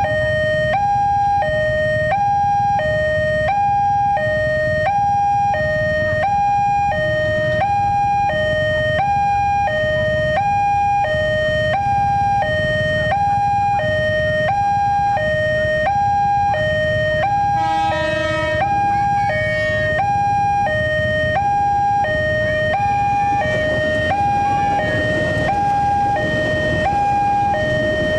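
Railway level-crossing warning alarm sounding its electronic two-tone signal: a high and a low note alternating evenly, each about two-thirds of a second long, over low traffic rumble.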